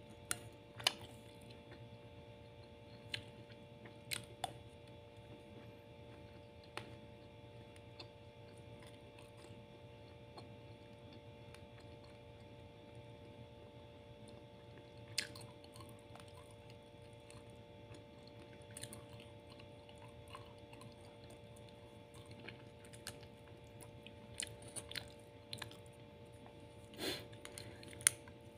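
A person chewing a mouthful of rice and chicken, with scattered sharp clicks of a spoon against the plate, over a steady electrical hum.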